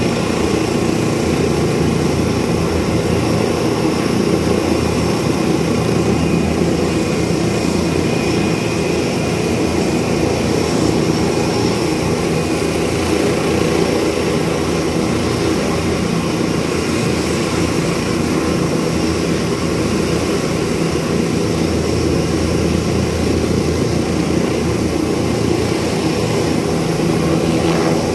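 Helicopter running on the ground with its main rotor turning: a steady low drone with a high whine above it.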